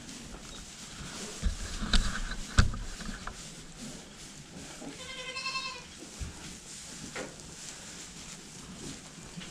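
A Boer goat bleats once, a high, quavering call lasting under a second about five seconds in. Before it come a few knocks and thumps, the sharpest about two and a half seconds in.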